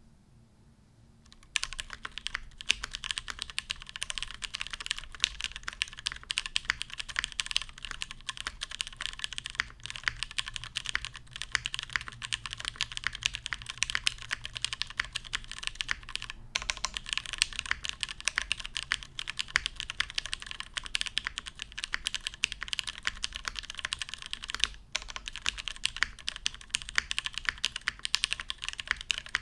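Steady, fast typing on a custom mechanical keyboard: lubed vintage Cherry MX Black linear switches in a top-mounted full aluminium plate, with DCS keycaps. The keystrokes start about a second and a half in and run as a dense, even stream, with two brief pauses.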